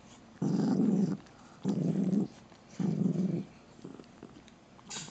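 Poodle growling low in three separate growls, each about half a second long with short pauses between: an irritated warning.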